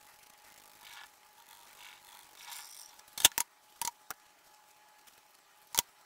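Faint swishing of a paintbrush working silicone into gauze, then several sharp clicks and taps of tools being handled, the loudest a pair about three seconds in and one more near the end.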